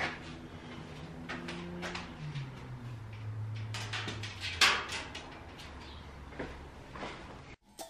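Fishing rods being handled and set into a foam pool-noodle rod holder against a steel wall frame: scattered light clicks and taps, the sharpest knock a little over halfway through. A low steady hum underneath drops in pitch twice.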